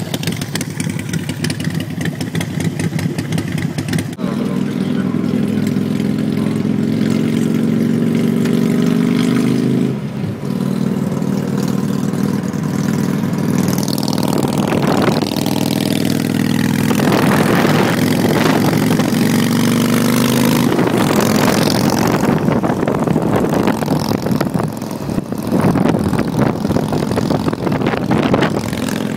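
Harley-Davidson Nightster's air-cooled 1200 cc V-twin, running through Vance & Hines Big Radius pipes, pulling through the gears. The pitch climbs, drops briefly at shifts about four and ten seconds in, then climbs again. Wind and road noise rush over it in the second half.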